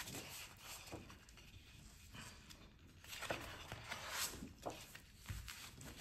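Faint rustling and soft slaps of large 12x12 scrapbook paper sheets being lifted, turned over and laid down, with a brief louder rustle about four seconds in.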